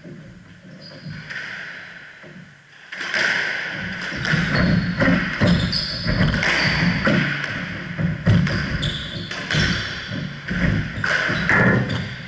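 A squash rally begins about three seconds in: the ball is struck by rackets and smacks off the walls again and again, in a quick irregular series of sharp hits that echo around the court, mixed with the players' shoes squeaking and scuffing on the wooden floor.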